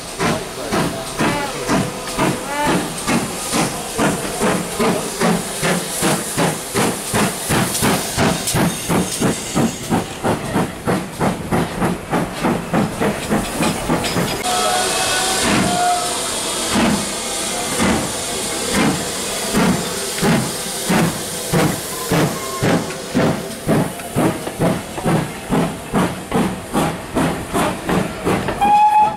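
Steam locomotive working, its exhaust beating in a steady rhythm of about two beats a second over hissing steam, with a short whistle about halfway through and another near the end.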